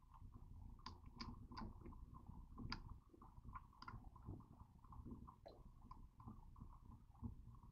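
Faint, scattered small clicks and taps of metal bolts being turned in by hand on a HydroBlend proportioner's valve block, over a faint steady hum.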